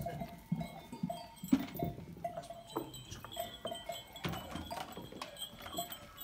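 Livestock bells clanking irregularly as the animals move, a clank every half second to a second, with a few low knocks between them.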